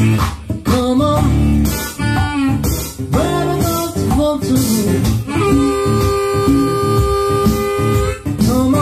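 Blues instrumental break on acoustic guitar and harmonica, with a stomp-box foot drum keeping a steady beat. The harmonica bends several notes, then holds one long note from a little past the middle until near the end.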